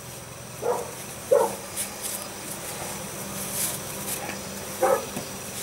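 Paper towel and a cotton gauze bandage rustling and crackling faintly as they are handled and wrapped around a cured pork loin. Three short yelp-like sounds stand out, about a second apart near the start and once more near the end.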